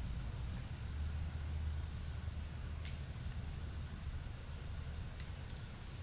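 Small songbirds giving a scattered series of faint, very short high call notes, with a few sharp ticks, over a steady low rumble.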